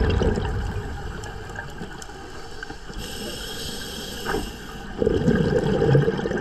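Water gurgling and sloshing, growing louder with a rushing surge about five seconds in.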